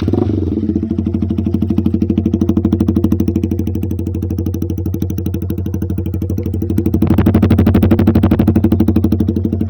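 Yamaha R15M's single-cylinder engine running loudly through an aftermarket SC Project full-system exhaust, with a steady, pulsing exhaust note. About seven seconds in it swells for a second or so, then settles back.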